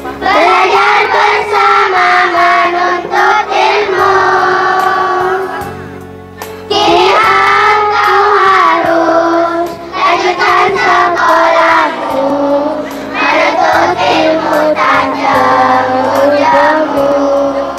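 Children's choir singing a farewell song together, one voice through a microphone. The sung lines pause briefly about six and twelve seconds in.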